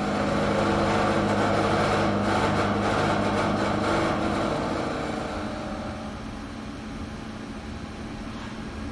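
Live-tooled indexable milling cutter on a CNC lathe milling flats on a 4340 steel bolt blank under coolant: a steady pitched machining hum with cutting noise, loud for about five seconds and then easing off. Part of the noise is put down by the machinist to a castle nut that fits poorly on the live-tool drive.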